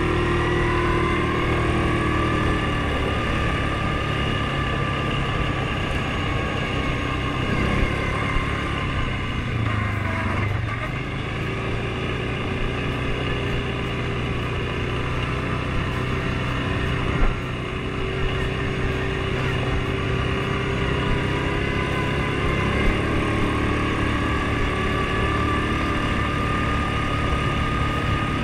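Off-road vehicle's engine running while riding, its whine rising as it picks up speed at the start and then holding fairly steady with small changes in pitch. A few sharp knocks stand out along the way.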